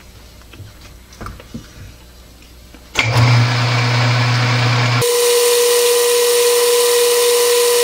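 A few light knocks, then an old metalworking lathe is switched on about three seconds in and runs steadily with a low hum. About two seconds later the sound changes abruptly to a higher steady whine with a hiss as the chuck keeps spinning.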